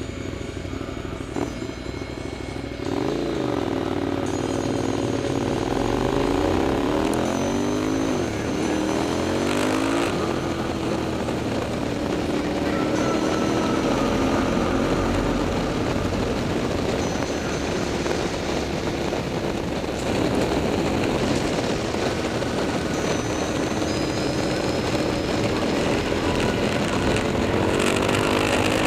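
KTM 990 SMT's V-twin engine breathing through a LeoVince aftermarket exhaust while being ridden. A few seconds in it gets louder and the pitch climbs in several quick sweeps as it accelerates through the gears, then holds steadier, and it climbs again near the end.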